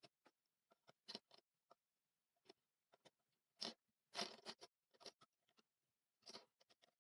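Faint, irregular small clicks, taps and crackles from hands working on a circuit board and its parts at an electronics bench, with a short crackly cluster about four seconds in.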